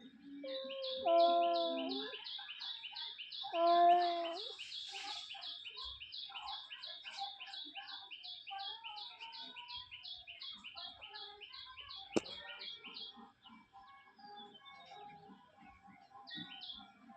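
Two loud, drawn-out cat yowls, about one and about four seconds in, as two cats face off, threatening each other. Behind them a bird repeats a rapid high chirp, about three or four notes a second, which stops about thirteen seconds in.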